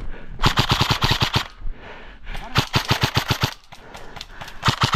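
Airsoft electric rifle (a Novritsch SSR4 AEG) firing on full auto: three bursts of about a second each, at roughly a dozen shots a second.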